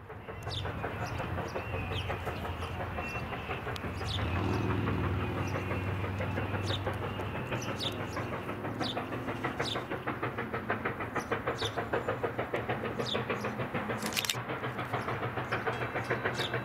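Chinese-built SY-class 2-8-2 Mikado steam locomotive working past, with a deep rumble and a rhythmic exhaust beat of several chuffs a second that becomes distinct in the second half.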